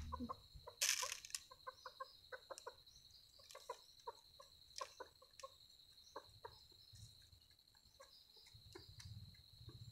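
Chicken clucking softly in short, repeated low clucks while it pecks rice from a hand.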